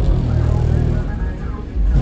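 Low, steady rumble of a car engine running close by, mixed with music, easing off about a second in and building again near the end.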